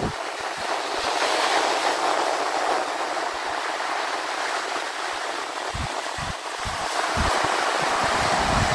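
Surf: small waves breaking and washing up a sandy beach in a steady hiss, with a few low wind buffets on the microphone in the second half.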